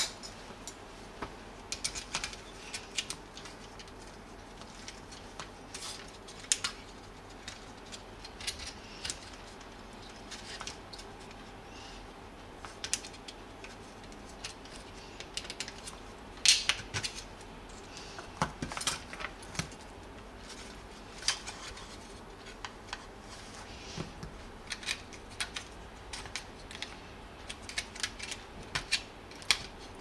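Plastic housing and small metal parts of a disassembled hair dryer being handled and fitted together: irregular clicks, taps and light clatter, the loudest about sixteen seconds in.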